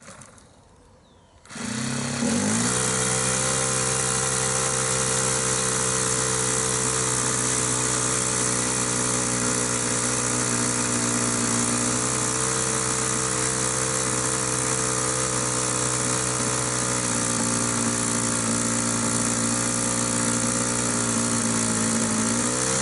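Model aircraft's motor and propeller starting up about a second and a half in, rising quickly in pitch and then running at a steady high speed. Near the end the pitch sags as it is throttled back.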